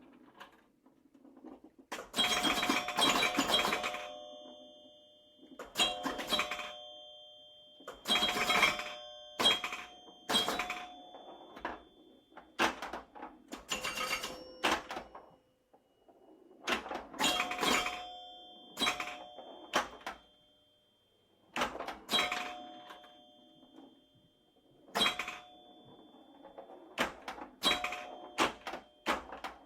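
Repeated bursts of mechanical clicking and clattering, each with short ringing bell dings at two pitches, recurring every second or two.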